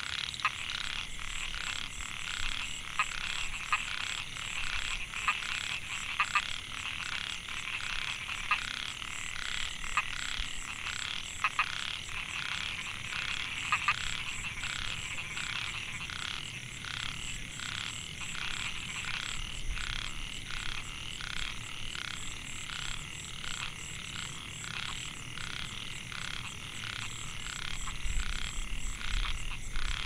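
A chorus of male Microhyla pulchra narrow-mouthed frogs giving their mating calls, repeating about twice a second. A few sharp clicks stand out in the first half.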